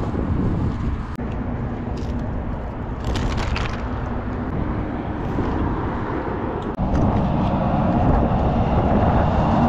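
Strong wind buffeting the microphone in a loud, rough low rumble that gets louder about seven seconds in.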